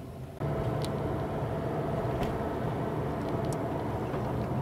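Steady low rumble and hum of a running vehicle, starting abruptly just under half a second in, with a few faint clicks.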